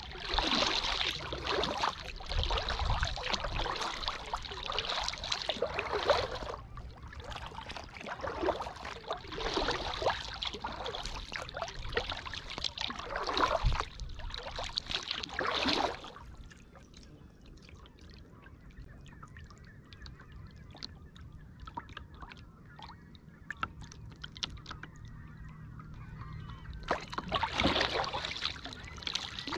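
Kayak paddle strokes: water splashing and dripping off the blades in runs of strokes. A pause of about ten seconds in the middle leaves only faint drips and ticks before the strokes start again near the end.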